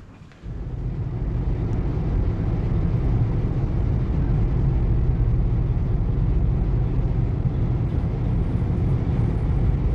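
Steady low rumble of a car travelling on a motorway, road and engine noise heard from inside the cabin, starting abruptly about half a second in.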